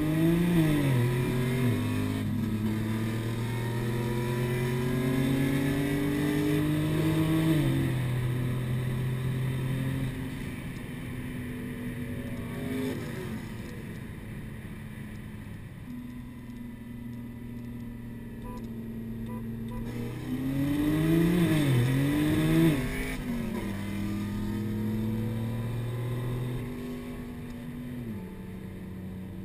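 Single-turbo BMW 335i straight-six, heard from inside the cabin, pulling at full throttle: the engine note climbs and drops back several times as it shifts up through the gears, then eases off to a quieter cruise about ten seconds in. Around twenty seconds in it revs up and down quickly and pulls hard again, letting off near the end.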